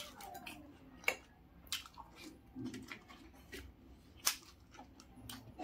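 Panipuri being eaten close to the microphone: crisp puri shells crunching as they are cracked and bitten, with sharp crunches about a second in and, loudest, about four seconds in, between wet squishing of the filling and chewing.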